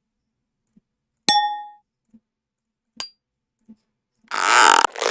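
Sound-effect samples being auditioned one after another: a metallic ding that rings for about half a second, then a short sharp click, then a noisy swish of about half a second near the end, cut off and followed by a brief second burst.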